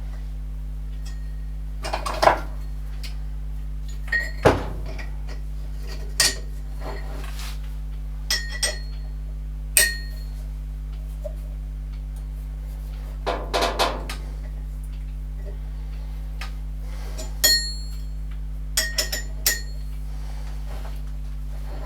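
Metal tools and parts clinking and knocking against metal, about ten short strikes at irregular intervals, some ringing briefly, over a steady low hum.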